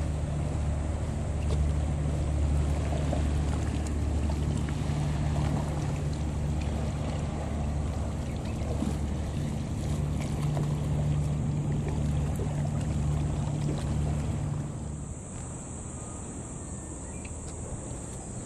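Seaside ambience at a concrete seawall: a loud, steady low rumble with wind and water noise. The rumble drops away sharply about fifteen seconds in, leaving a quieter background with a thin, high, steady whine.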